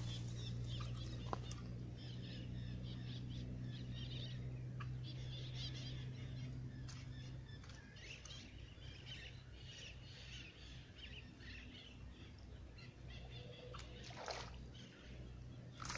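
Birds chirping and calling in short bursts of song, over a low steady hum that weakens after about seven seconds.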